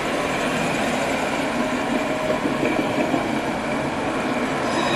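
Alstom Citadis tram passing close by: steady rolling of steel wheels on the street rails with a faint steady electric whine.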